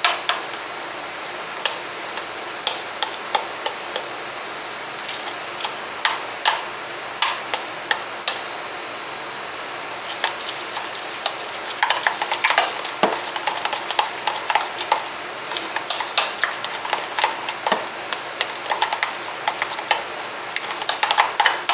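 A spoon stirring a thick cream cheese mixture in a bowl, with irregular clicks and scrapes against the bowl that come faster and thicker over the second half, over a steady background hiss.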